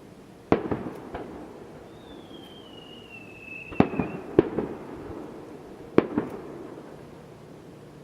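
Aerial fireworks shells bursting: a sharp bang about half a second in, two close together near four seconds and one at six seconds, each trailing off in crackle and echo. A whistle falling slowly in pitch sounds for about two seconds and ends as the second bang goes off.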